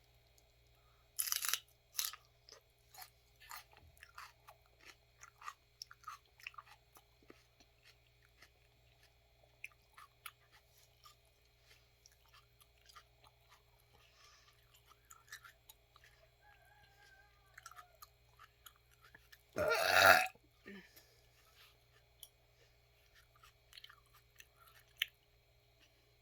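Raw celery stalks being bitten and chewed, with crisp crunching snaps between quieter chewing. The loudest crunch comes about 20 seconds in.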